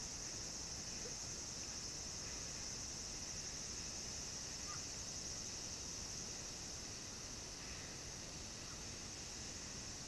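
A steady high-pitched chorus of insects droning without a break, with a few faint short chirps over it.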